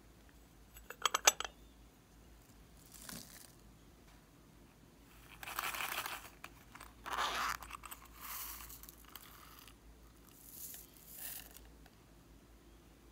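Hands handling slime add-ins: a quick cluster of sharp plastic clicks about a second in, then several short rustling, crinkling scrapes as small pink cubes are tipped out of a plastic compact into a tray of white slime.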